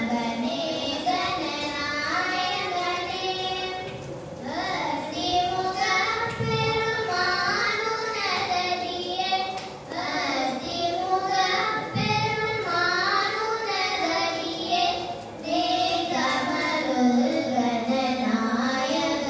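Two young girls singing a Carnatic vocal piece together into microphones, in long held notes that waver and glide, with brief breaths between phrases.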